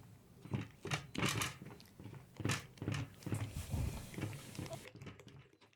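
Wooden masher grinding chopped onions, a run of uneven crunching, squelching strokes.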